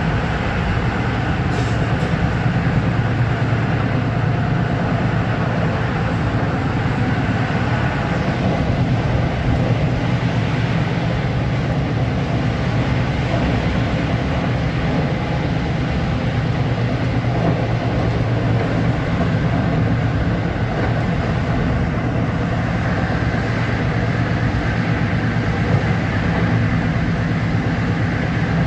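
Long Island Rail Road M3 electric multiple-unit train running steadily, heard from on board: a loud, even rumble with a low hum that holds unchanged throughout.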